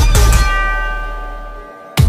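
Background electronic dance music: the beat drops out and a bell-like chime rings and fades away, then the beat comes back in at the end.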